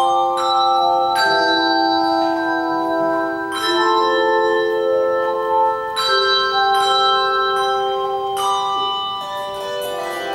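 Handbell choir ringing an Irish medley: chords of several bells struck together every second or two, each note ringing on and overlapping the next.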